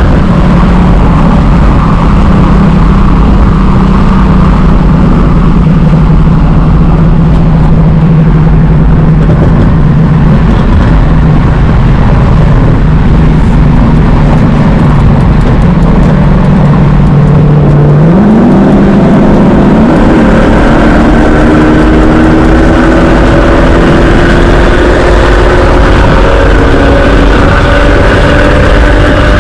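Car engine and road noise while driving. The engine holds a steady, slowly falling note, then about eighteen seconds in its pitch jumps up and climbs steadily as the car accelerates.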